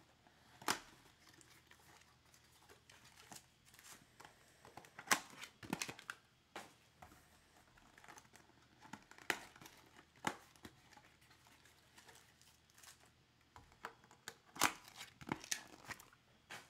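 A cardboard trading-card box being torn open and its foil-wrapped card packs crinkling and rustling as they are pulled out and stacked, in irregular sharp tearing and crinkling sounds, loudest about five seconds in and again near the end.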